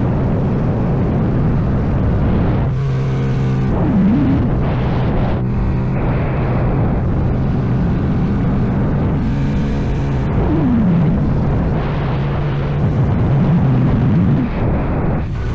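CFMoto Papio small single-cylinder motorcycle engine running under way, its note rising and falling several times with throttle and gear changes, under heavy wind and road noise on the microphone.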